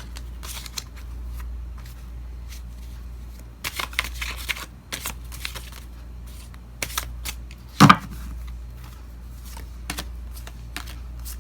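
A deck of oracle cards being shuffled and handled by hand: irregular crisp riffling and snapping of card stock, busiest about four seconds in, with one louder thump about eight seconds in.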